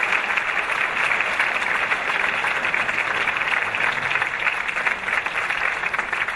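Audience in a theatre applauding, a dense, steady clapping with no music.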